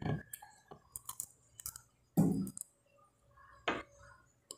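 Close-up mouth sounds of chewing a crusty French bread roll with butter: irregular crackly clicks and crunches of the crust, the loudest a little over two seconds in.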